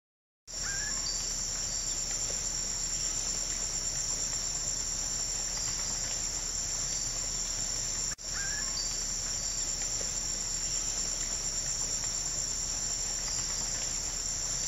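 Steady high-pitched chorus of crickets and other insects trilling without pause; it breaks off for an instant about eight seconds in and picks up again.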